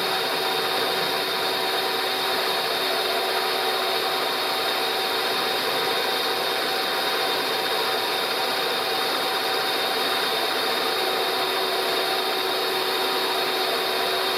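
Milling machine running steadily with a slitting-saw type cutter machining the built-up weld on a scooter casing's brake caliper mounting lug, a continuous cutting noise with a few steady whining tones over it.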